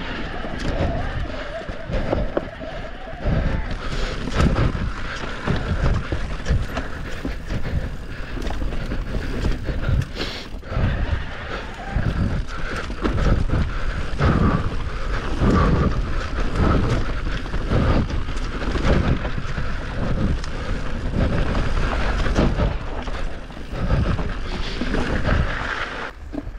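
Mountain bike descending a rough enduro trail: tyres rumbling over dirt and rocks, with an irregular run of knocks and rattles from the bike as it hits bumps, and wind buffeting the microphone.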